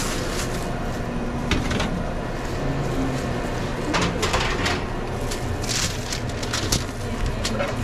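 Work noise behind a sandwich counter: irregular rustles and light clicks from handling food and wrappers over a steady low background hum.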